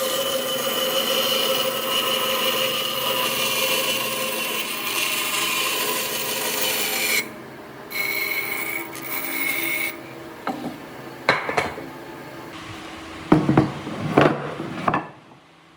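A power tool running on wood, its pitch sinking slowly, cuts off about seven seconds in. It runs briefly twice more, and then come several sharp wooden knocks as pieces are handled.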